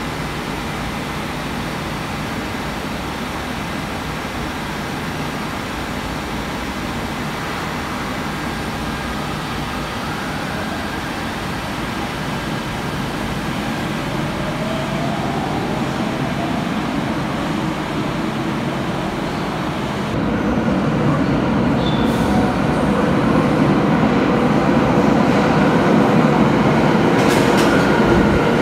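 Tokyo Metro 02 series subway train pulling out of an underground platform, its traction motors whining up in pitch as it gathers speed. About two-thirds of the way through, a louder scene: a red Marunouchi Line train running along an underground platform, its rumble growing, with a few sharp wheel clicks over rail joints near the end.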